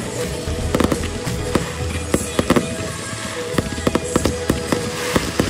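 Fireworks display: ground-launched fireworks going off in quick, irregular succession, a dense run of sharp bangs and crackles.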